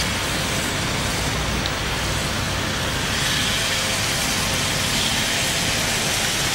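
Marinated chicken pieces sizzling steadily in oil on a hot ridged cast-iron grill pan.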